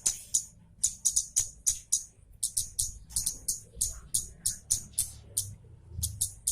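Kemade (baret merah) songbird calling in short, sharp, high chirps, several a second in irregular runs: the sharp chattering song used as a training recording for cage birds.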